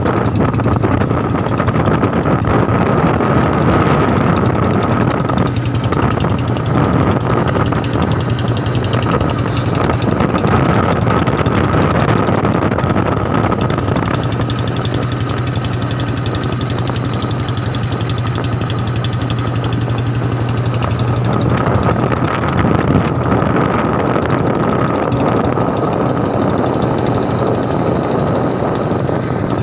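Royal Enfield Bullet's single-cylinder four-stroke engine running steadily at low rpm, with its typical 'dug dug' thump.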